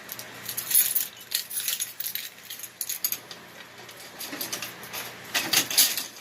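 A bunch of keys jangling and metal clinking as a key is worked into the lock of an Eagle candy vending machine, with a louder run of jingles near the end.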